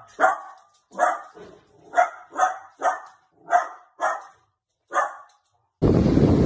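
A dachshund barking repeatedly: about eight sharp, separate barks. Near the end they give way abruptly to a steady rush of wind on the microphone.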